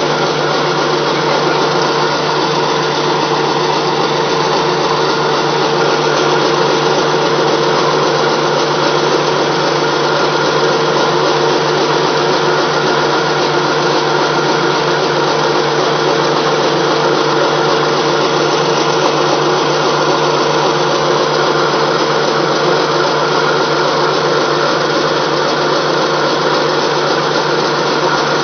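Small flat-die pellet mill running steadily under load, its rollers pressing feed through the die, with a constant mechanical hum.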